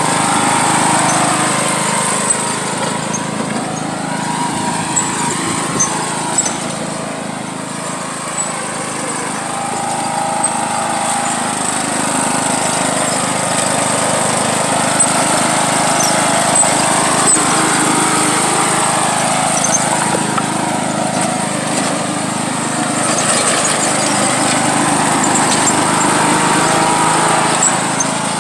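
John Deere riding lawn mower's engine running steadily as the mower drives across grass towing a person on a board, its sound swelling and easing slowly as it moves.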